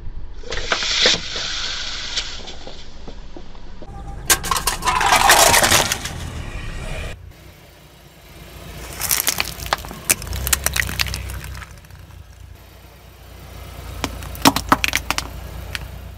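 A car's tyre crushing plastic objects, among them a soda bottle and a bag of plastic toy eggs, with three separate spells of cracking and crunching plastic over a low engine hum.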